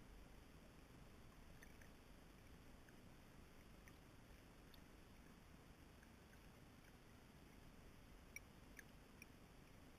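Near silence: a faint, even underwater murmur of river water picked up by a submerged camera, with scattered faint ticks, a few slightly louder about eight to nine seconds in.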